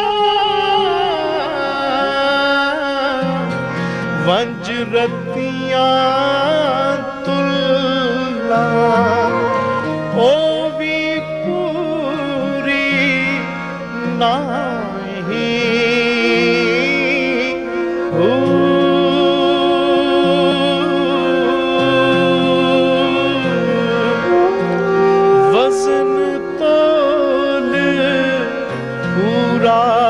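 Male singer performing a slow Punjabi Sufi song in a wavering, ornamented voice over held harmonium chords, with a sarangi accompanying.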